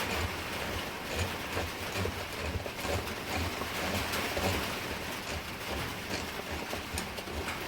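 Heavy rain drumming on a shed roof: a steady hiss with scattered light taps.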